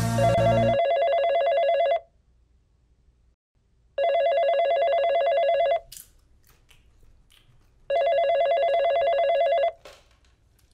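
Telephone ringing with a rapidly warbling electronic ring: three rings of about two seconds each, with about two seconds between them. Rock music cuts off just under a second in.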